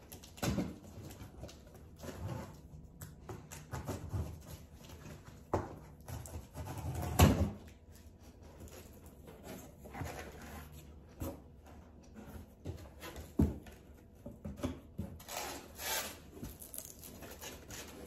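A cardboard shipping box being cut open with a knife and its flaps pulled open: scraping and rustling of cardboard with scattered knocks, the loudest about seven seconds in and a sharp one about thirteen seconds in.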